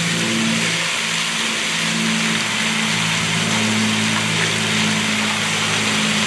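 Quarry stone-cutting machine running: a steady hiss over a motor hum that shifts in pitch a few times.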